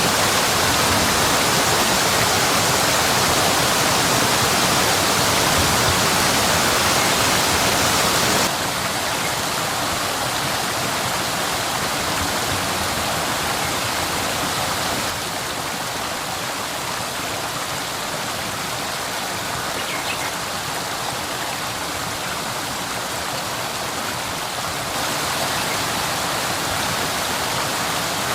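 Waterfall: a steady rush of falling water. The sound steps abruptly in level and tone three times, about a third of the way in, about halfway, and near the end, as one waterfall recording cuts to another.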